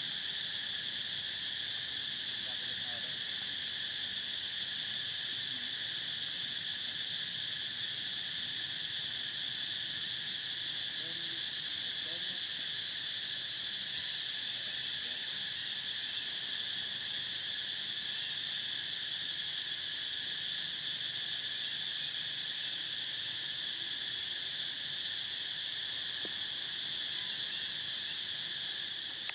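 Insect chorus in forest: a steady, unbroken high buzz.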